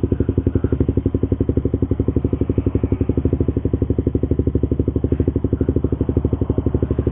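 Suzuki GSX-R150's single-cylinder four-stroke engine idling steadily through an R9 Misano aftermarket racing exhaust: an even pulsing of about a dozen beats a second. The tone is bassy and full.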